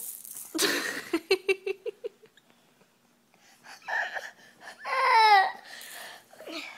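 Laughter in quick rapid pulses about a second in, then after a pause a short wavering vocal cry that sweeps down in pitch around five seconds in, typical of a baby starting to whimper.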